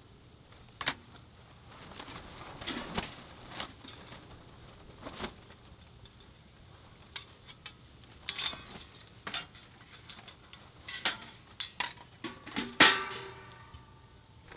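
Stainless steel pot parts being handled: the glass lid lifted off and the perforated pasta insert drawn out, with scattered metal-on-metal clinks and knocks. The loudest knock, near the end, rings briefly.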